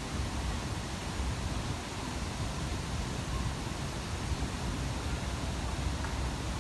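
Artificial waterfall: a steady rushing of falling water, heavy in the low end.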